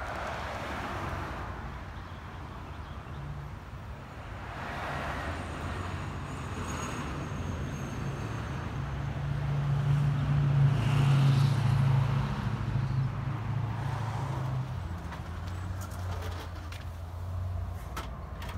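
Ford 6.7 L Power Stroke turbo-diesel V8 idling with a steady low hum that swells for a few seconds about halfway through.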